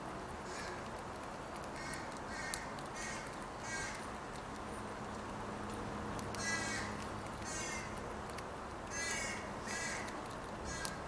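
Crows cawing: a run of four or five harsh caws in the first few seconds, then a pair of caws about midway and another pair near the end.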